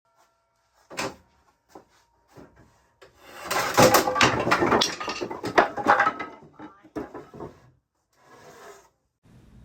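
Wooden boards being handled: a sharp knock about a second in, then a busy stretch of knocking, clattering and scraping of wood on wood, with a short rustling hiss near the end.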